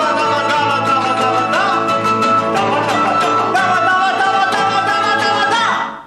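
Live acoustic music: guitars and a small stringed instrument strummed, with a high wavering melody line on top. The music stops abruptly near the end.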